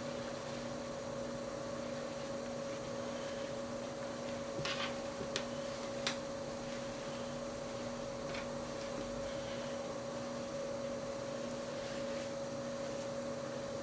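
Steady electrical hum, with a few faint clicks and rustles from hands handling a silicone doll on a fleece blanket, most of them around the middle.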